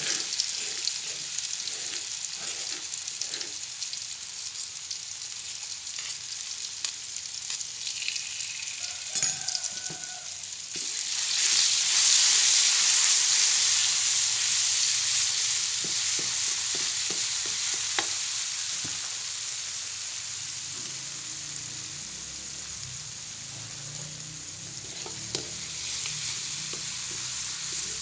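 Ground chilli spice paste frying in hot oil in an aluminium wok, sizzling steadily, with a spatula scraping and clicking against the pan as it is stirred. The sizzle swells sharply a little past ten seconds in, then slowly eases.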